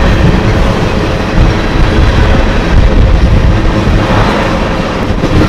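BNSF freight train's covered hopper cars rolling past at speed at close range: a loud, steady rumble of steel wheels on the rails.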